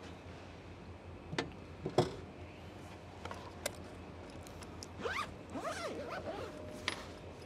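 Handling of a zippered fabric picnic bag on a plywood slide-out table. There are sharp knocks about one and a half and two seconds in, the second the loudest, then a rasping, zip-like sound from about five to six and a half seconds in.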